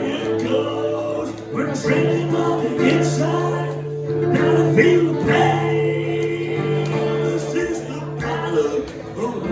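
Live rock band playing, held guitar chords under sung vocals.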